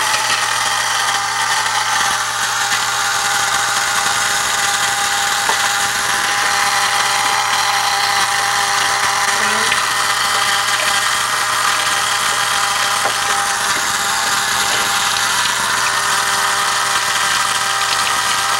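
Small electric motor in a homemade Rube Goldberg machine starting up and then running steadily with a high whine.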